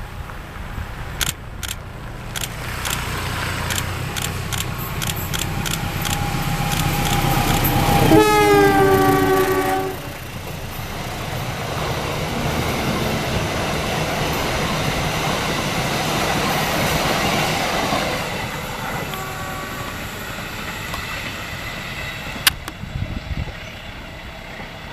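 A train passing: wheels clicking over rail joints as it comes closer, then a locomotive horn blast of about two seconds, dropping slightly in pitch, followed by the steady rumble of the cars going by, which fades away in the last few seconds.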